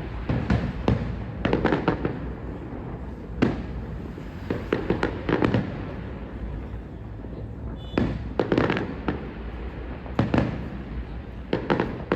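Fireworks display going off: clusters of sharp bangs and crackling bursts every second or two, over a steady low rumble.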